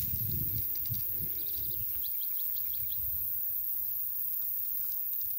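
A bird chirping a quick run of about seven short, high, rising notes, over a low rumble during the first couple of seconds.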